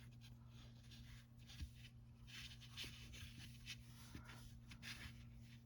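Faint rustling and scratching of acrylic yarn being handled and pulled through a crocheted piece, in short irregular strokes, over a low steady hum.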